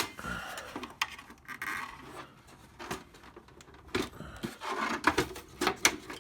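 Handling noise from working on a printer's scanner assembly: a sharp plastic click at the start, then scattered clicks, taps and short scrapes of plastic parts being worked loose, more frequent in the last couple of seconds.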